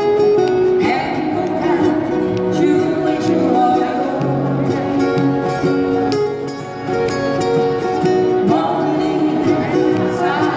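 Live acoustic guitars strumming a song, with a singing voice over a moving bass line.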